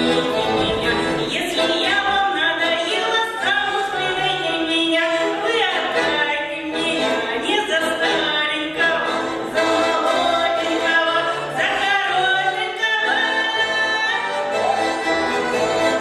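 Russian folk dance song being sung, with instrumental accompaniment under the voice.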